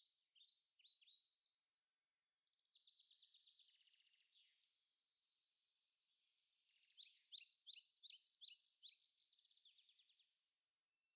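Small songbirds singing faintly: quick high chirps, a rapid trill about two seconds in, and a busier stretch of song from about seven seconds.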